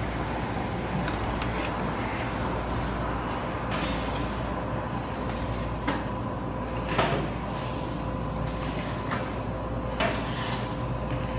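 Bakery shop background: a steady mechanical hum, with a few sharp knocks and clatters of metal trays and racks, the loudest about seven seconds in.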